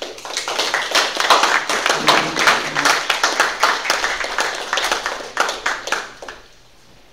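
Audience applauding, separate hand claps standing out, dying away about six seconds in.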